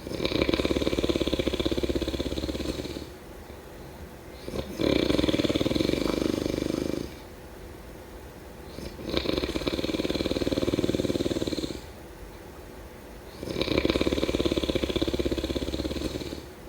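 Snoring in slow, regular breaths: four long snores, each lasting two to three seconds, with quieter breathing between them about every four and a half seconds.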